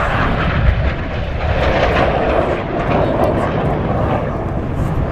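Jet noise from a BAE Hawk T1 of the Red Arrows, its single Adour turbofan giving a steady rushing roar as it flies past.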